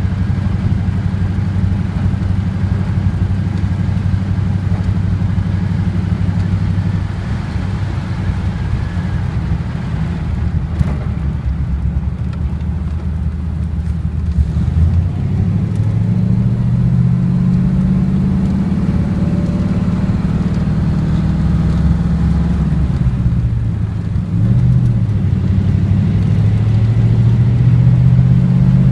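A 1939 car being driven, its engine running low and steady. About halfway through the engine note starts to climb. It dips briefly near the end, then climbs again and grows louder.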